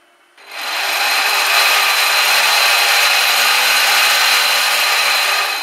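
Electric bow thruster motor of a Robbe Norderney model ship running out of water in the reverse direction: it starts about half a second in, runs steadily as a hissing whir with a low hum underneath, and cuts off near the end.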